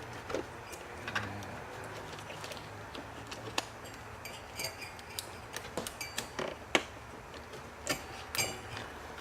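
Power supply connectors being unplugged from drives inside a desktop PC case: a string of short plastic and metal clicks and light knocks, irregularly spaced, over a low steady hum.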